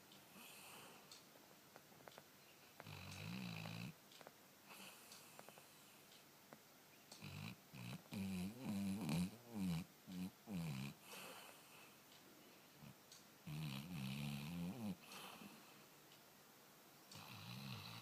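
A sleeping pet snoring in spaced breaths. Midway it gives a run of short cries that rise and fall in pitch as it dreams.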